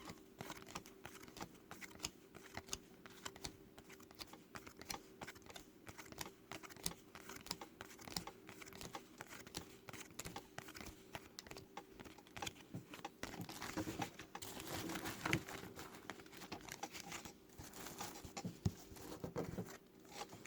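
Trading cards being flipped through by hand, a quick irregular run of soft clicks and slides of card stock, with a faint steady hum underneath.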